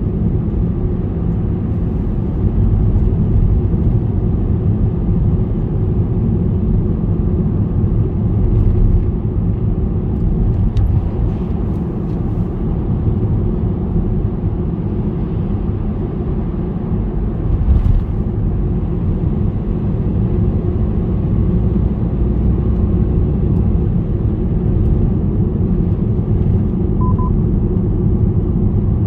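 Steady low rumble of a car's tyres and engine while driving on a highway, heard from inside the car.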